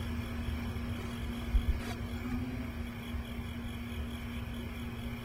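Steady low background rumble of outdoor location noise with a constant low hum, and one short low thump about a second and a half in.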